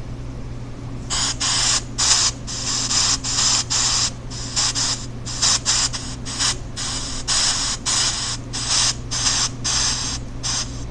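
Chopped pink noise from an EVP app: bursts of hiss that start about a second in and switch on and off irregularly, several times a second, at changing volume, over a steady low hum.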